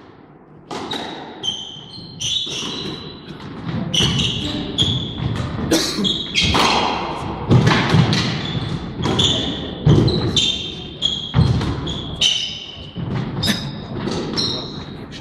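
Squash rally on a wooden court: the ball cracks off the rackets and walls again and again at an irregular pace, with sneakers squeaking in short chirps on the wooden floor between shots.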